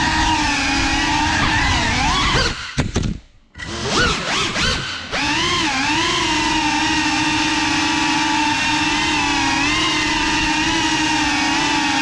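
Whine of a Cinelog 35 cinewhoop FPV drone's motors and propellers in flight, with a steady pitch that wavers slightly with throttle. About two and a half seconds in the whine dips and glides, almost cuts out, then spools back up to full by about five seconds.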